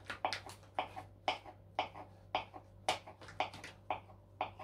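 Kitchen knife dicing crab sticks on a wooden cutting board: a run of short, sharp taps, about three or four a second.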